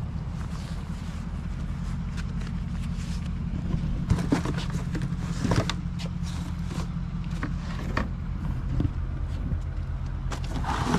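A motor vehicle's engine idling steadily, with scattered knocks and rattles over it, mostly in the middle of the stretch.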